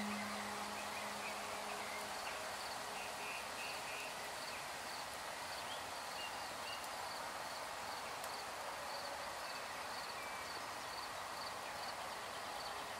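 Outdoor ambience: a steady hiss with a faint insect chirp repeating at an even pace, and a few faint bird chirps about three seconds in.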